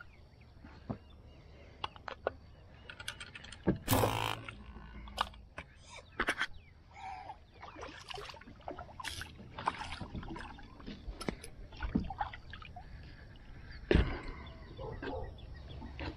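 Bowfishing from a plastic kayak: a sudden bow shot and splash about four seconds in, then scattered clicks and knocks as a speared pleco (armored catfish) is pulled in on the bowfishing line. A loud knock comes near the end as the fish is brought onto the kayak deck.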